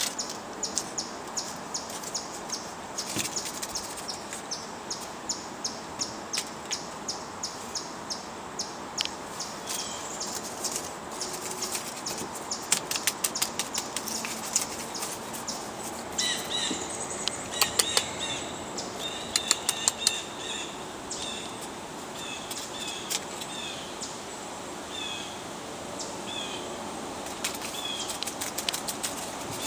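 A dry fallen leaf crackling on a wooden deck as a kitten bites and bats at it, in bursts around the middle and again near the end. Birds chirp in short repeated notes through the second half, over a steady outdoor hiss, with a run of evenly spaced ticks, about three a second, in the first third.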